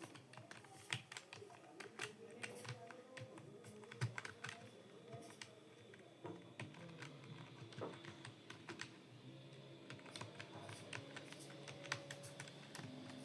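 Computer keyboard being typed on steadily, keys clicking in quick, irregular succession.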